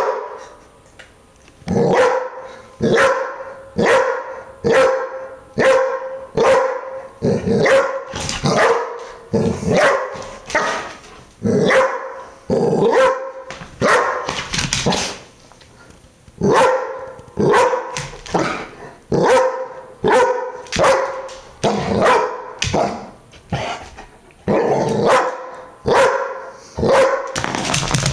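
A dog barking over and over, about one bark a second, at a small metal ball it is afraid of: wary alarm barking at an unfamiliar object.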